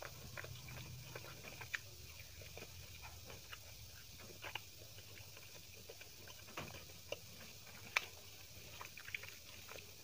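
Quiet eating sounds: scattered soft wet clicks and smacks as fingers knead and mix chicken biryani rice on a plate, with mouth chewing. The sharpest click comes about eight seconds in.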